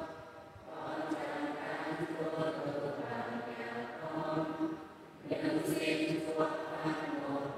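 Church choir singing a hymn in long held notes, breaking off briefly about five seconds in before the next phrase.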